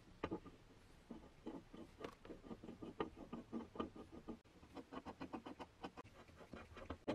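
Brass threaded foot being screwed by hand into the black-painted metal base of a vintage balance scale: a quick run of small, light clicks and scrapes, about four a second, starting about a second in.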